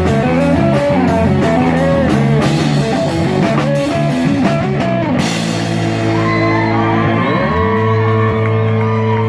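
Rock band playing with electric guitar, bass and drum kit. The drums stop about five seconds in, leaving held guitar and bass notes ringing, with some notes bent or sliding.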